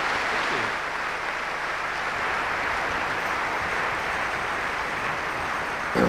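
A large audience applauding steadily, welcoming a speaker onto the stage.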